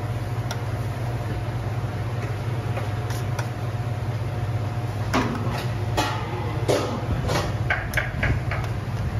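Metal tongs clicking against a stainless steel tray and porcelain rice bowls while shredded turkey is portioned out, a quick run of sharp clinks in the second half. A steady low hum runs underneath.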